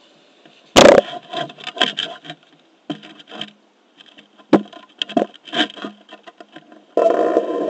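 Knocks, rubbing and scraping from a Onewheel XR board being handled and set level for riding, with a loud knock about a second in. About seven seconds in, a steady rolling noise starts as the board sets off.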